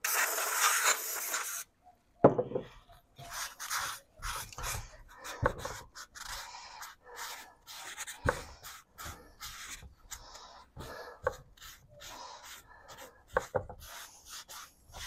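An aerosol cleaner sprays in a hiss for about a second and a half. Then a rag rubs and wipes the cylinder head's sealing surface in quick, irregular strokes, with a few light knocks, cleaning off the lapping compound.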